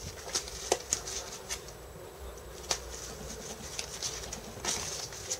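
Glossy board-game cards being handled and flipped through in the hands: soft rustles and a few light clicks at irregular moments.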